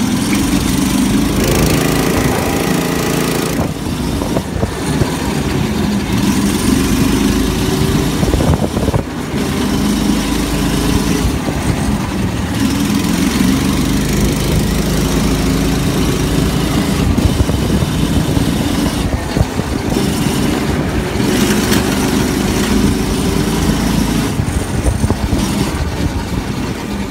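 Go-kart's small single-cylinder gas engine running as the kart drives along, its pitch rising and falling as it speeds up and slows.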